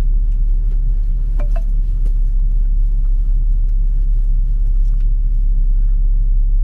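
Steady low road and drivetrain rumble inside the cabin of a 2012 automatic Ford Focus on the move. No clunk comes from the front suspension, whose new strut bearings and top mounts have cured the knock over bumps and in turns.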